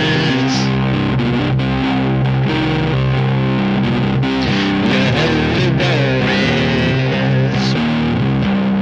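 Rock music led by a distorted electric guitar over a steady bass line.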